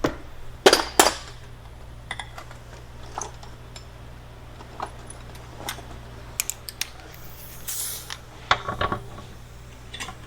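Scattered metallic clinks and taps of hand tools and a socket on the propeller shaft's 14 mm center bearing bolts, with two sharper knocks just under a second in, over a steady low hum.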